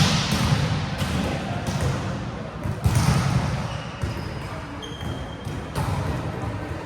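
Volleyball play in a sports hall: several sharp ball hits, the loudest right at the start and another about three seconds in, each echoing in the hall.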